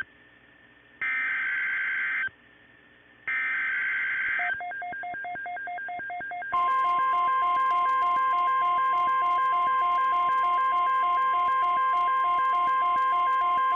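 EAS/SAME digital alert header: two loud screeching data bursts about a second long, a second apart. Then about two seconds of quieter alternating beeps, and from about six and a half seconds in, a loud steady single-pitch attention tone, typical of the NOAA Weather Radio 1050 Hz warning alarm, with a rapid alternating beep pattern over it. Together they signal a Tornado Watch about to be read out.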